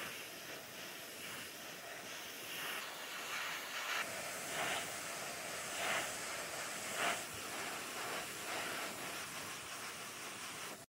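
Gravity-feed airbrush spraying paint: a steady hiss of compressed air, with several short louder surges in the middle as the trigger is pulled further.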